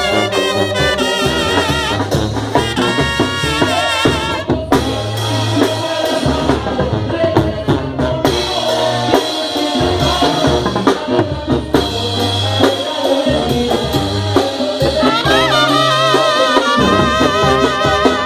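Mexican banda music, instrumental passage: trumpets and other brass play a melody with wavering, vibrato-laden held notes over a low bass line and drums.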